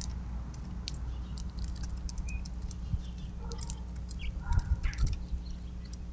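Small birds at a seed feeder: scattered sharp ticks of pecking and seed handling, with a short flurry of wing flutters about four and a half seconds in, over a steady low hum.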